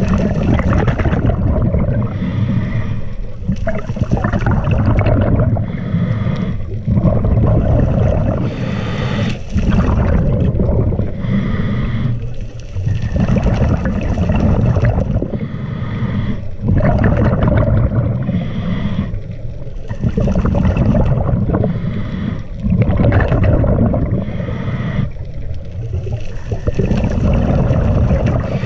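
Scuba diver's regulator breathing heard underwater: a cycle about every three seconds of rumbling, gurgling exhaled bubbles, each followed by a short quieter gap.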